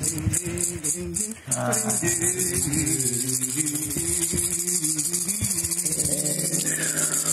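A hand-held ceremonial rattle shaken rapidly and steadily over a person, with a low wordless voice holding and stepping between notes underneath.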